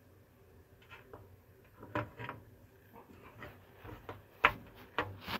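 Hands handling a 3D-printed plastic robot model, its printed parts giving a few light clicks and knocks as it is moved and reposed. The loudest is a sharp knock about four and a half seconds in, with two more just after.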